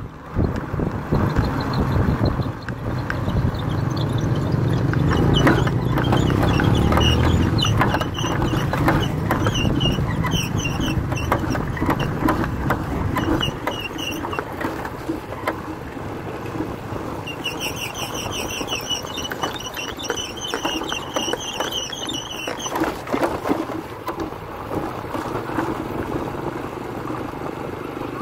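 Motorbike running along a rough dirt road, with wind buffeting the microphone and the knocks and rattles of the jolting ride; the low rumble is heavier in the first half and eases off about halfway through. High warbling chirps come through twice in the middle.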